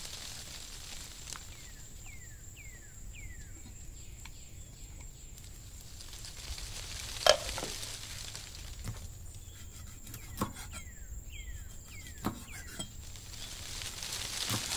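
Stew simmering in a lidded pot on a grill, a faint steady sizzle, with one sharp clink about seven seconds in and a couple of fainter knocks later. Runs of short falling chirps come twice over the top.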